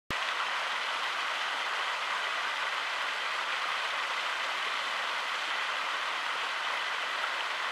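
Steady rushing of running water, an even hiss with no breaks or changes in level.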